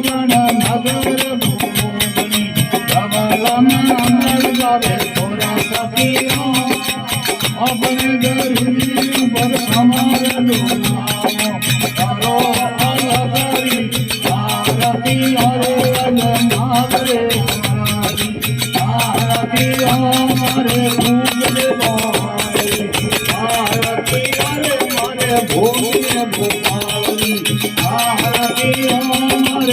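Rajasthani folk devotional aarti music: a steady, dense rattle of hand percussion over a wavering melodic line.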